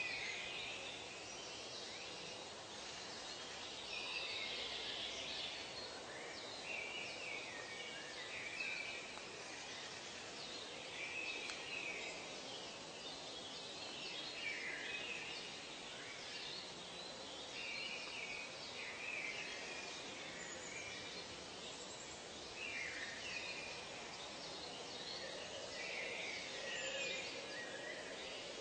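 Forest nature ambience: birds calling again and again over a steady background hiss.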